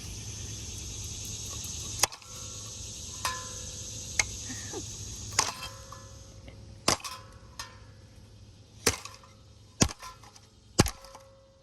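Hammer blows on a ceiling fan's blade bracket: about nine sharp strikes at uneven intervals, some leaving a short metallic ring, over a steady hum that fades after about six seconds.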